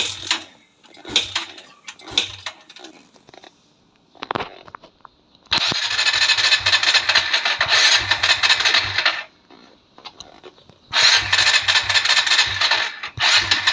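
Kawasaki Barako II 175cc motorcycle's starter cranking the cold engine with the choke on, in two long bursts of about four seconds and then two seconds, the second running on past the end. A few short knocks come before the first burst.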